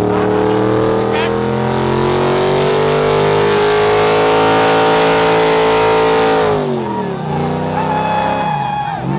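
Pickup truck engine held at high revs during a burnout, with the hiss of tyres spinning on concrete. About two-thirds of the way through the revs fall away sharply, then dip once more and climb again near the end.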